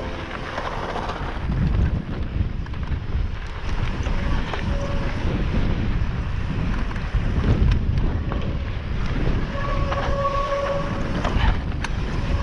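Wind buffeting the microphone and mountain-bike tyres rumbling and rattling over a rocky trail, with scattered knocks. Near the end a steady squeal from the disc brakes comes twice, the brakes heating up on the descent.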